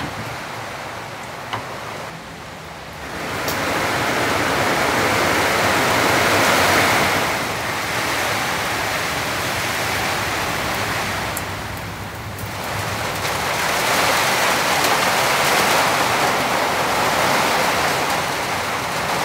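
Torrential rain drumming on a cabin roof, heard from inside as a loud, steady hiss. It comes in waves, easing off twice before building again.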